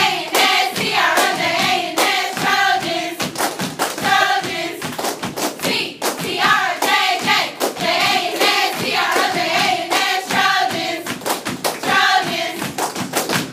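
A group of teenage girls chanting a cheer in unison over rhythmic hand claps, which keep a steady beat of a couple of claps a second throughout.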